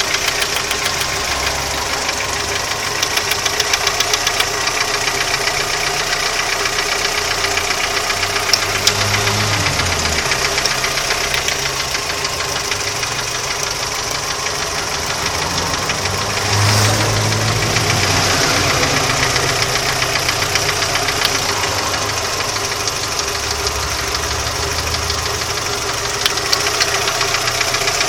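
Audi 80 engine running with a rapid, steady knock from inside the engine. The engine note changes briefly about a third of the way in and again a little past halfway.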